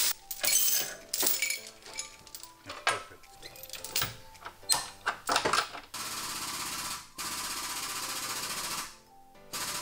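Heavy steel chains clanking and rattling as they are handled, in a string of sharp, uneven knocks. About six seconds in this gives way to a steady, fast-rattling buzz that runs in three stretches with short breaks.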